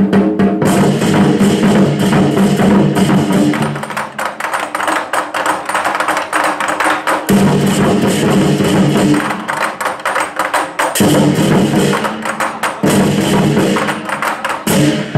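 A drum ensemble playing large barrel drums with sticks, together with crashing hand cymbals, in a fast, dense rhythm of strikes.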